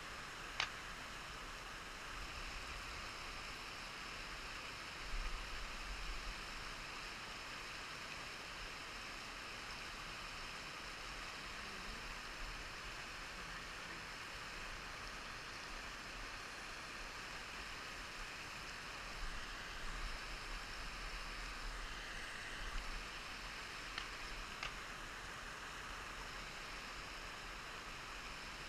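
Steady outdoor background hiss with a few brief low rumbles on the microphone and a couple of faint clicks.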